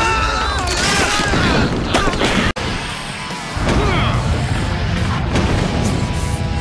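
Cartoon action soundtrack: dramatic music mixed with crashing and rumbling effects of the ground shaking. It breaks off abruptly about two and a half seconds in at an edit, then picks up again.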